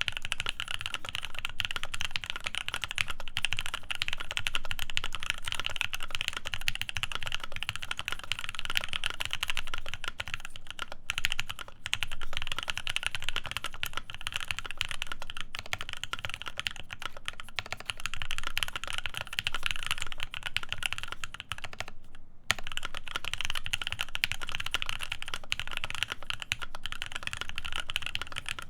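Continuous typing on a Devastating TKL custom mechanical keyboard with Krytox-lubed C3 Tangerine linear switches, PBT keycaps and an FR4 plate: a dense stream of keystrokes that breaks off briefly about 22 seconds in.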